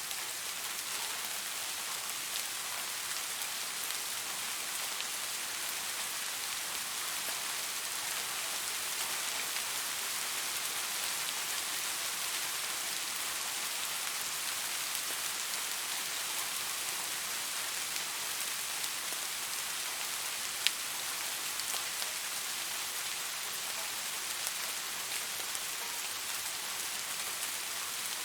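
Steady rain falling on leaves: an even hiss with scattered small drip ticks throughout. One sharp, louder tick stands out about two-thirds of the way through.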